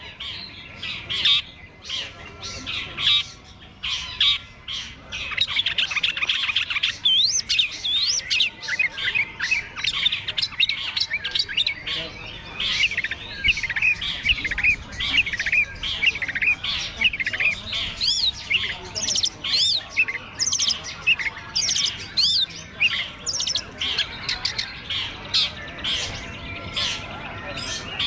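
Long-tailed shrike singing a rapid, varied song of chattering notes, harsh squawks and quick up-and-down whistles, growing near-continuous about five seconds in, with other contest birds singing around it.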